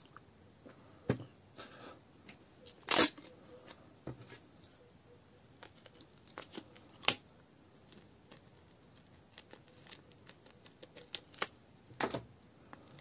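Adhesive tape pulled off its roll with a short tearing rip about three seconds in, then cut with scissors, a sharp snip about seven seconds in, among light handling clicks and rustles.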